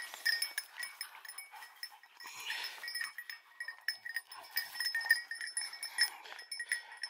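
Small bells on hunting dogs' collars, jingling and ringing irregularly as the dogs move around.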